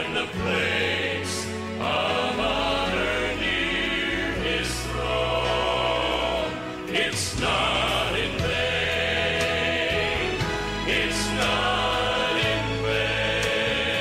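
Gospel music with a choir singing over instrumental backing.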